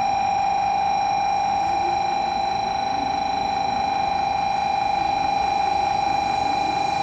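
A steady, unbroken electronic tone, buzzer-like, holds at one pitch, with faint distant voices underneath.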